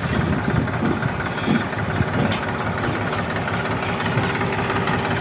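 Massey Ferguson 1035 DI tractor's three-cylinder diesel engine running steadily with a knocking beat, powering the hydraulic tipper that tilts the loaded sand trailer.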